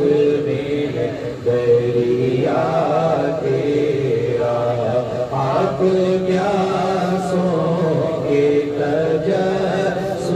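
A man singing a naat, an Urdu devotional poem, unaccompanied into a handheld microphone. He draws out long, wavering notes over a low steady hum.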